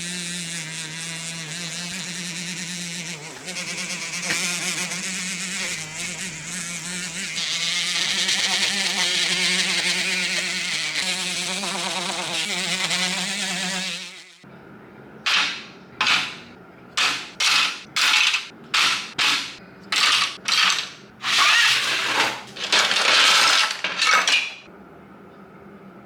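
A small electric power tool runs steadily for about fourteen seconds with a motor hum and high whirring hiss, then cuts off abruptly. About a dozen short hissing bursts follow in quick succession.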